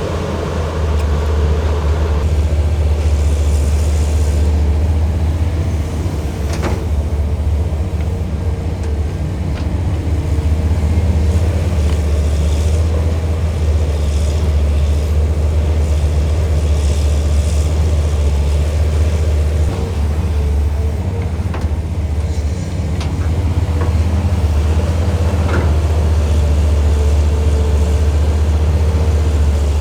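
Caterpillar 320CL hydraulic excavator's diesel engine running steadily under working load: a loud, deep drone with a steady hum on top. A few sharp knocks come through, one about seven seconds in and a couple near the end, along with brief bursts of hiss.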